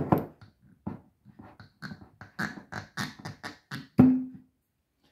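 A bar-top cork being twisted and worked out of a gin bottle: a quick run of short squeaks and creaks. About four seconds in it comes free with a loud pop and a brief low hollow note from the bottle.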